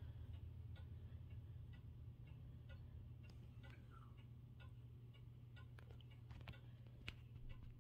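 Early 1900s 30-day mantel clock ticking faintly and evenly, about two to three ticks a second, over a steady low hum.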